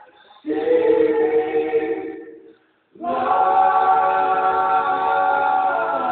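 Male a cappella vocal group singing in close harmony: one phrase fades about two and a half seconds in, a short pause follows, then the voices come back in on a long held chord.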